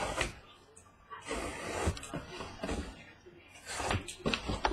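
A large cardboard case being turned and slid across a desk by hand: cardboard scraping and rubbing, starting about a second in, with a few light knocks near the end.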